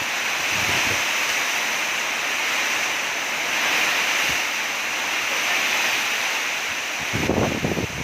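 Thunderstorm rain and very strong wind: a steady rushing that swells and eases, with a brief burst of low buffeting near the end.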